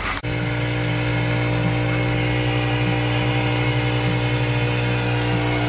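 A generator running steadily on a neighbouring boat: a constant engine hum with a strong low tone and a row of higher overtones. It comes in abruptly just after the start.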